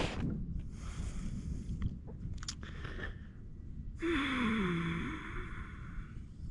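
A man's long breathy sigh, falling in pitch, about four seconds in, over a steady low rumble with a few small knocks.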